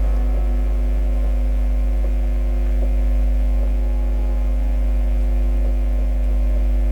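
Steady, loud electrical mains hum with a buzzing stack of overtones, unchanging throughout.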